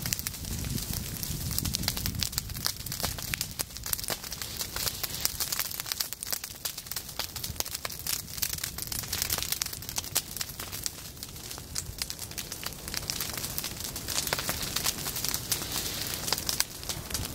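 Prescribed-burn flame front creeping through dry goldenrod and prairie stems, with dense, continuous crackling and popping over a steady low rumble.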